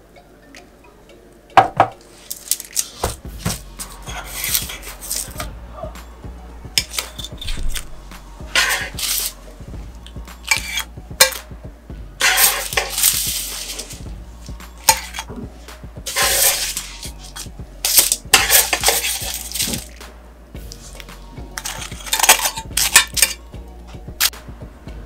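Kitchen tongs clicking against a baking tray and glass baking dish, with crisp rustling each time a piece of baked puff pastry is lifted off the baking paper and set down, several times over.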